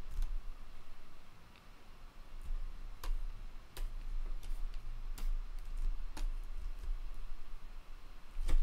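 Computer input clicks: about six isolated sharp clicks, a second or so apart, over a low steady hum.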